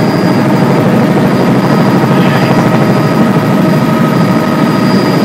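Helicopter in flight heard from inside the cabin: a loud, steady drone of engine and rotor with a few steady high tones over it.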